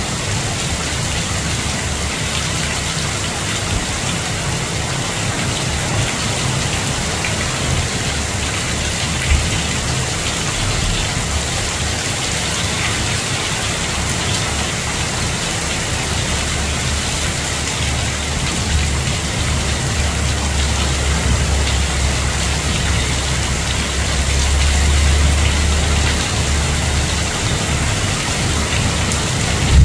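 Heavy rain pouring steadily through tree foliage in a downpour, with a low rumble that swells in the second half.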